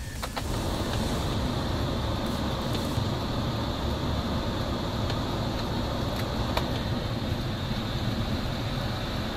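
Air-conditioning blower in a Hyundai YF Sonata blowing a steady rush of air through the vents, over the low hum of the idling LPG engine. The air noise comes up about half a second in, and a few light clicks come from the dashboard controls.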